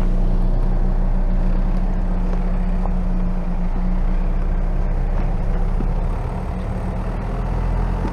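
Toyota Tacoma pickup's engine running steadily at low speed as the truck crawls up an off-road trail.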